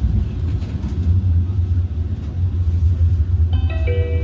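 Tram running, a steady low rumble of motors and wheels on the rails. Near the end a short chime of several notes sounds in quick succession, the kind of signal that comes before an onboard announcement.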